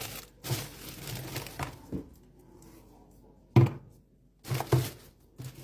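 Grocery packaging rustling as items are handled, with a few sharp knocks of things set down on a hard surface, the loudest about three and a half seconds in.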